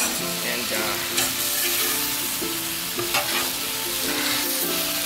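Stir fry of beef, asparagus and tomato sizzling on a hot steel griddle while metal spatulas toss and scrape it, with a few sharper scrapes of spatula on steel.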